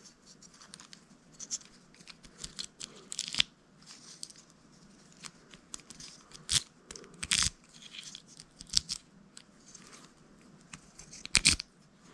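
Key being inserted and turned in a freshly rebuilt 2013 GMC truck ignition lock cylinder with new slugs and springs: a run of sharp metal clicks and short scrapes at irregular intervals, the loudest near the end.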